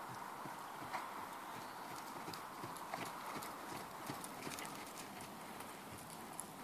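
Hoofbeats of a ridden mare trotting on sand arena footing, a steady run of soft hoof strikes.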